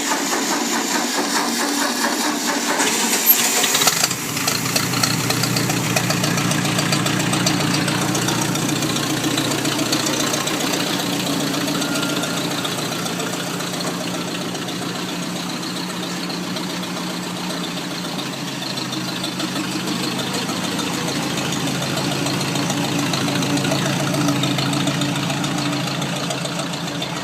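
Ford 800 tractor's four-cylinder engine just after starting: it runs rough for the first few seconds, then settles into a steady idle.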